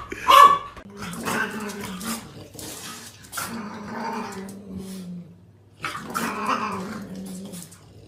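A short loud cry right at the start, then low growling in long drawn-out stretches, with a short break about two-thirds of the way through, from a cat and a French bulldog squaring off.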